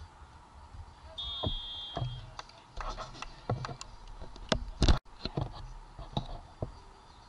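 Referee's whistle blown once briefly about a second in, then scattered sharp knocks and claps, the loudest a thump just before a sudden cut.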